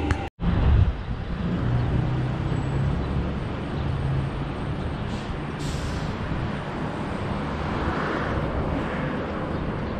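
City street traffic: a steady rumble and hiss of vehicles running past, with a short high hiss of air about halfway through. The sound cuts out for an instant just after the start.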